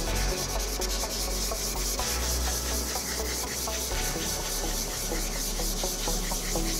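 Sandpaper on a hand sanding block scrubbed back and forth over a wet plastic headlight lens in rapid, continuous scratchy strokes, wearing off the yellowed, oxidised surface.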